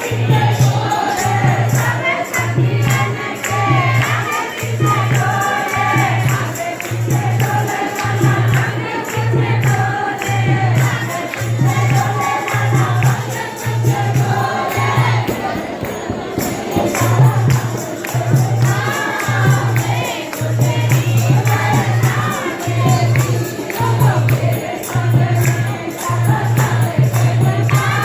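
Devotional temple music: many voices singing together over a steady deep beat about once a second and dense rattling high percussion, as at a Hindu temple aarti.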